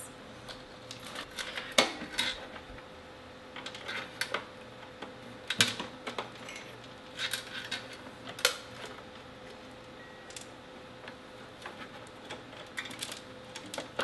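Plastic power-supply connectors and cable bundles clicking and rattling against a desktop computer's sheet-metal case as they are handled and plugged back in: scattered light clicks and clatters at irregular spacing, with a faint steady hum underneath.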